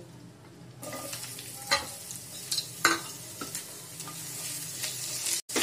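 Sliced onions sizzling as they go into hot ghee with whole spices in a nonstick frying pan, the hiss setting in about a second in. A silicone spatula stirs and scrapes them, with a few sharp strokes.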